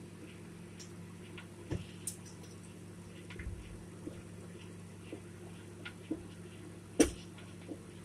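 Microwave oven running: a steady low hum, with a few faint clicks and one sharper click about seven seconds in.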